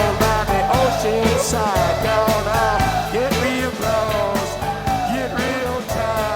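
Background rock music with a steady beat and a gliding lead melody.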